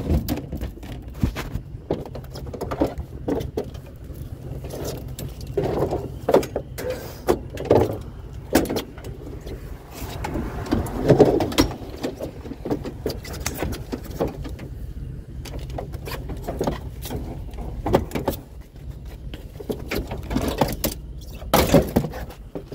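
Irregular knocks, clanks and rattles of items and tie-downs being handled and set in place while a load is secured, over a steady low hum.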